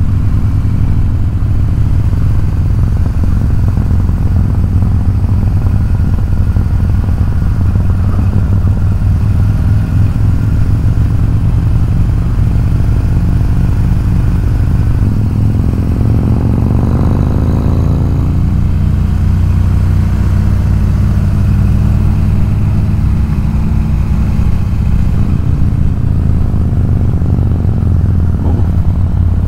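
Harley-Davidson Road King's V-twin engine running steadily at cruising speed, heard from the rider's seat. A little past the middle the engine note briefly glides up and back down.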